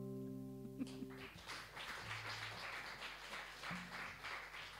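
The last chord of the song rings out and fades, then a small audience claps lightly from about a second in.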